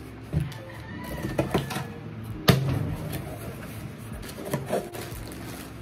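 Cardboard shipping box being unpacked by hand: scattered rustles, scrapes and small knocks, with one sharp knock about two and a half seconds in.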